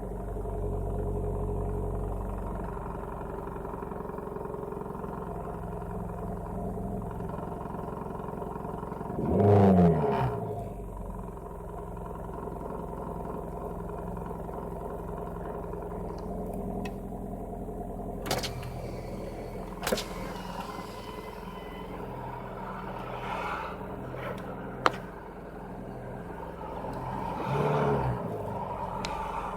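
Nissan SR20VE four-cylinder engine running cold at a steady idle with an abnormal mechanical noise, which the owner suspects comes from the timing chain tensioner. Two brief louder swells rise and fall, about ten seconds in and near the end, and a few sharp clicks come in between.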